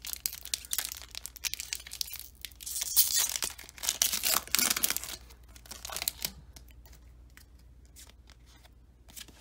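Foil booster-pack wrapper of a Pokémon card pack being torn open, crinkling and ripping in uneven bursts, with the sharpest rips a few seconds in. After about six seconds the tearing stops, leaving only faint clicks of handling.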